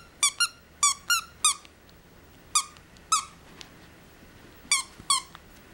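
Squeaker in a plush elephant toy squeaking as a puppy bites and chews it. There are about nine short, high squeaks, mostly in quick pairs, with quiet gaps between them.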